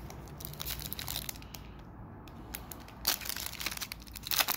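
Foil wrapper of a hockey card pack being crinkled and torn open by hand: a run of crackles, with louder clusters about three seconds in and again near the end.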